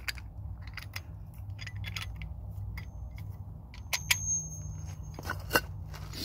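Irregular metallic clicks and clinks of hand tools on the truck's front hub castle nut as it is backed off slightly, with a few sharper knocks a little past the middle, over a steady low hum.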